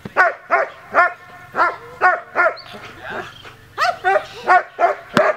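German shepherd barking at a protection-training helper with a bite pillow, quick sharp barks two to three a second with a short pause midway. A sharp click sounds near the end.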